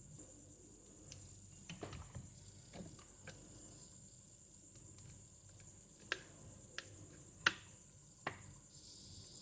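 Faint handling noises of cables and connectors being fitted to a bare mini PC motherboard: a few soft clicks and knocks, then four sharp clicks in the second half.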